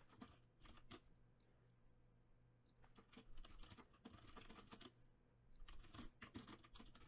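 Faint computer keyboard typing: a few separate key clicks in the first second, then quick runs of keystrokes from about three seconds in.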